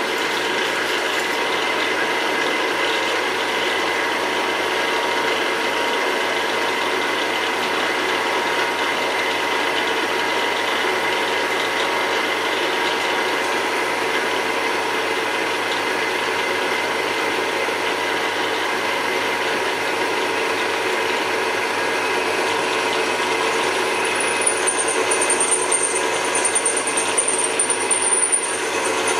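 Drill press running steadily, its bit cutting into a rusty Hart Parr tractor carburettor body. Near the end a high squeal joins in for about four seconds with uneven louder scrapes, then stops.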